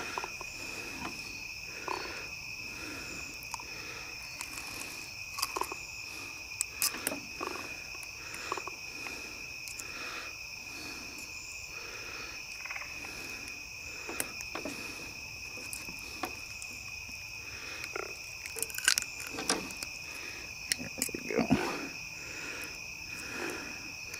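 Steady night chorus of crickets and other insects, two continuous high trills, over a regular pulsing call of frogs. Scattered sharp clicks and knocks of pliers and hands working at a caught catfish, a few louder ones in the second half.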